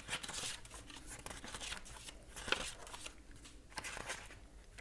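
Thin paper pages of a Filofax personal-size diary insert rustling and flapping as they are leafed through by hand: a run of short, soft rustles, with a sharper one about halfway through.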